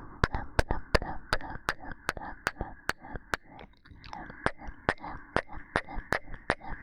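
Rapid kissing sounds made close to a 3Dio binaural microphone, sharp lip smacks repeating about two and a half times a second. A steady muffled rustling runs underneath.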